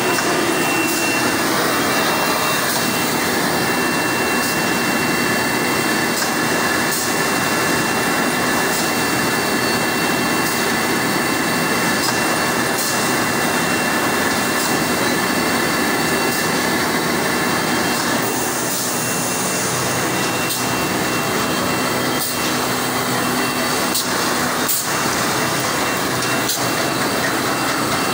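Automatic corrugated-board pasting machine running steadily: a continuous mechanical drone and hiss with a steady high whine, and scattered light ticks.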